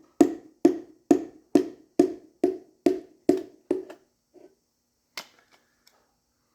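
Piston being tapped down into a cylinder bore of a 360 V8 block: a steady run of about nine sharp taps, roughly two a second, driving it home past the rings. Then a few lighter knocks before it stops.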